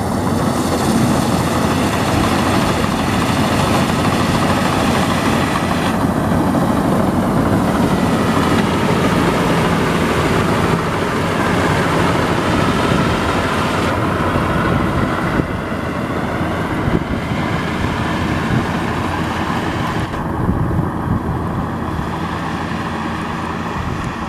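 Rice combine harvester's engine and machinery running steadily at a loud level, easing off slightly about fifteen seconds in.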